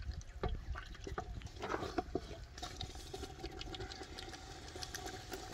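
Wooden spoon stirring thick, sticky rice in a metal cooking pot (handi), with irregular scrapes and knocks of the spoon against the pot, more of them in the first couple of seconds.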